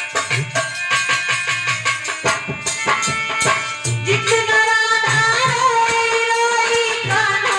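Indian devotional song music: a steady hand-drum rhythm under sustained melodic notes, with a voice starting to sing about four seconds in.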